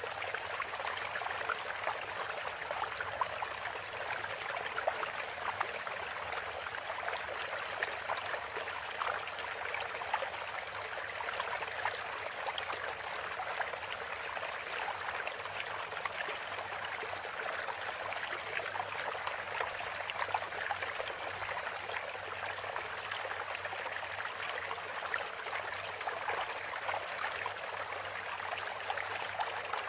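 Spring water gushing out of rock and running off as a steady rushing splash, the spring swollen by heavy rain.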